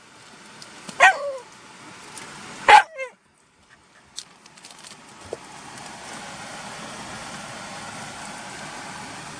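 Black Shiba Inu barking twice, about a second and a half apart, inside a car. Then a steady vehicle noise sets in about five seconds in.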